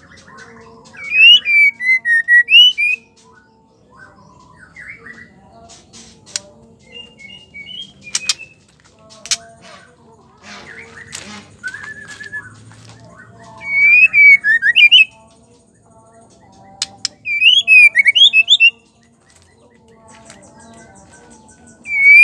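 White-rumped shama singing: four loud bursts of rapid, fluting whistled phrases that swoop up and down, each a second or two long, with quieter chips, clicks and short notes between them.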